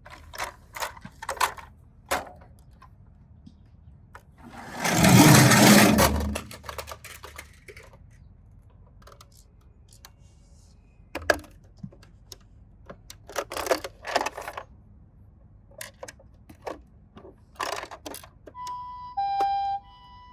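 Toy minicars clattering and knocking against one another and a toy slide, with a loud rolling rush about five seconds in as they run down the slide. Near the end a two-tone ambulance siren starts, alternating high and low 'pee-po'.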